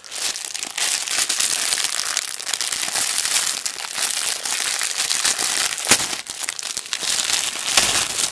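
Clear plastic packaging bag crinkling and crackling as hands pull and tear it open, with a couple of sharper snaps about six seconds in and near the end.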